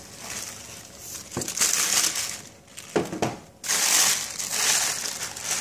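Shoebox tissue paper crinkling and rustling in two long bursts as it is pulled back from the shoes, with two light knocks from the cardboard box, about a second and a half in and again about three seconds in.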